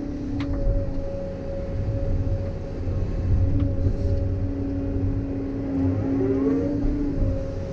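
Hydraulic excavator working: the diesel engine runs under load with a steady hydraulic whine over it. About six seconds in, the whine rises and slides in pitch as the hydraulics take up the work.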